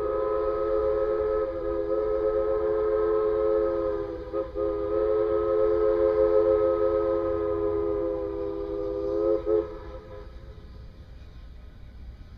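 Strasburg Rail Road steam locomotive's chime whistle blowing for the grade crossing: a loud chord of several low notes held in long blasts, with a brief break about four seconds in and a short toot just before it stops about ten seconds in.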